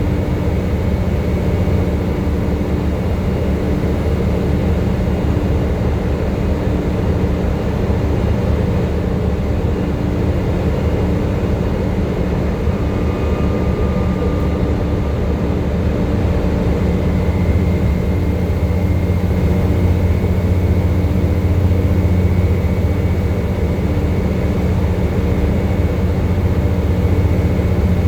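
Volvo B7TL double-decker bus's six-cylinder diesel engine running steadily under way, with a faint high whine in the second half.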